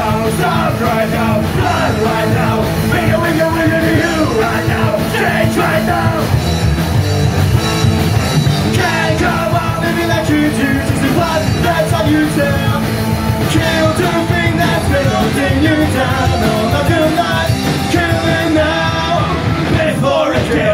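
Punk rock band playing live: electric guitars and drums with singing.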